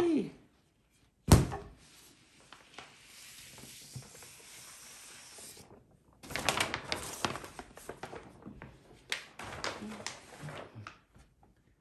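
A single sharp thunk about a second in, the loudest sound, then faint hissing and a run of irregular rustling and crinkling as a plastic sheet and a carded wool batt are handled and spread out.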